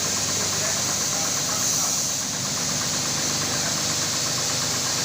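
Electric carpet-washing machine running steadily, a constant hum with a fast, even ticking from its moving parts.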